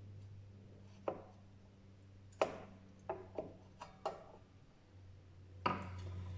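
Hand tools knocking and clicking against the motorcycle's front axle and fork while working the axle loose: about six sharp knocks spread over a few seconds, over a low steady hum.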